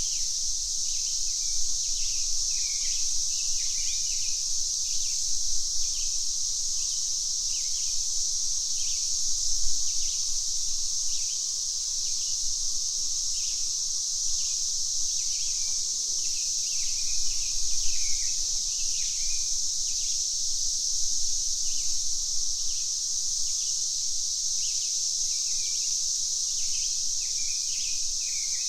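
Cicadas droning steadily at a high pitch, with many short bird chirps scattered over the drone.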